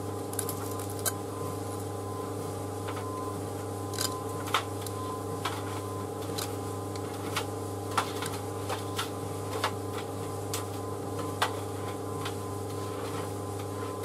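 White Knight C38AW compact reversing tumble dryer running with a load: a steady motor and drum hum, with irregular light clicks as the laundry tumbles.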